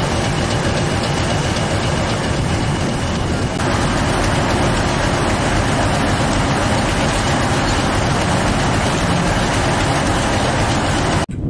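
English Electric Class 50 diesel locomotive's 16-cylinder engine running steadily at idle, loud and close. It grows slightly louder about three and a half seconds in.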